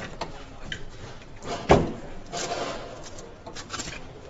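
Factory assembly-line machinery handling car bodies: scattered clicks and one heavy clunk a little under halfway through, followed by a short hiss.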